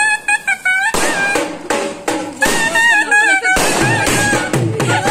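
Music with a wavering melody line; from about three and a half seconds in a steady drum beat joins it. Sharp bangs of fireworks cut in about one second in and again about three and a half seconds in.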